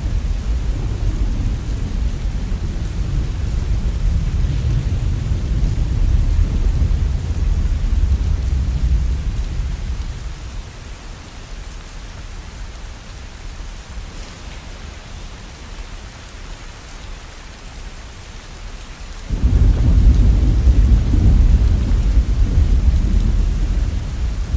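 Rain falling steadily under a deep rumble of thunder that fades out about ten seconds in, leaving only the rain hiss; near the end a new loud rumble starts suddenly.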